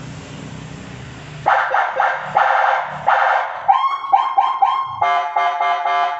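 Electronic vehicle siren (Landun CJB100PO) stepping through its tones: after a steady hiss, three harsh horn-like blasts, then rapid chirps falling sharply in pitch about four a second, then a fast stuttering warble from about five seconds in.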